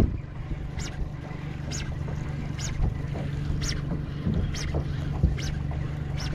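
Steady low hum and wind rumble aboard a small fishing boat. A faint short hiss repeats about once a second, and two soft knocks come about a third and four-fifths of the way through.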